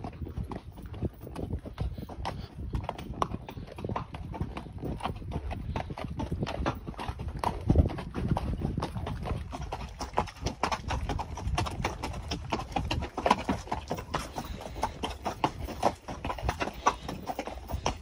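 Hoofbeats of a gaited molly mule being ridden along a rocky dirt trail: a continuous, uneven run of hoof clicks and thuds.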